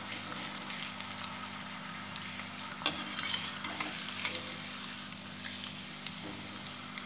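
A potato papad sizzling and crackling as it deep-fries in hot oil in a metal kadhai. Scattered clicks and scrapes come from a perforated slotted spoon turning it, with a sharper click and a louder stretch of crackling about three seconds in as the papad is lifted.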